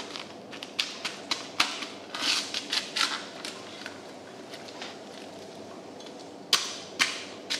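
Scattered sharp clicks and knocks from a large bluefin tuna carcass being handled and cut on a wooden board, with a quick run of clicks midway and two louder knocks near the end.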